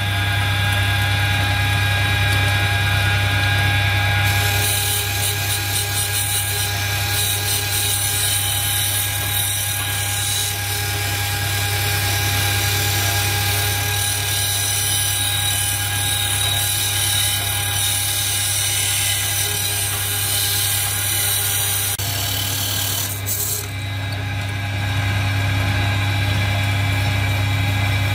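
Electric motor spinning a wire wheel brush with a steady hum. From about four seconds in until about twenty-two seconds, metal hurricane-lantern parts are pressed against the wire bristles, adding a harsh high hiss as rust and paint are scrubbed off.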